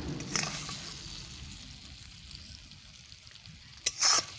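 Tomato-jaggery chutney sizzling in a hot iron kadai, fading as it is scraped out of the pan. There is a short scrape about half a second in and a louder one near the end.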